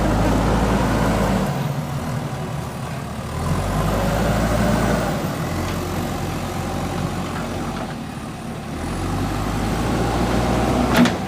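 Diesel engine of a JCB 3DX backhoe loader running and labouring, its note swelling and easing several times as the machine works, with one sharp knock near the end.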